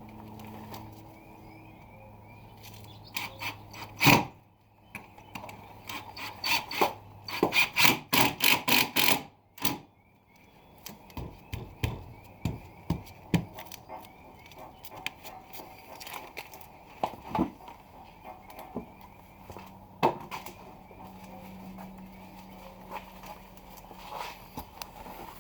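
Knocks, taps and scrapes of a plywood core piece being worked into place in a boat transom bedded in filler: a loud knock about four seconds in, a quick run of loud knocks a few seconds later, then scattered lighter taps.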